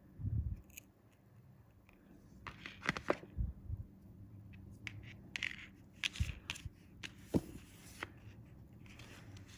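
Close handling noise from tying a fishing hook: a dull bump just after the start and a sharp click from diagonal cutters trimming the line. These are followed by scattered small clicks, scrapes and rustles as fingers work the line and hooks.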